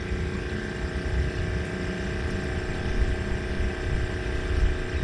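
A steady motor hum, with a few faint steady tones over an uneven low rumble.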